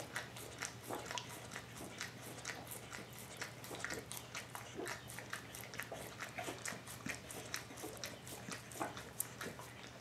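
A dog licking a two-pound copper ingot, a steady run of quick wet licks, several a second.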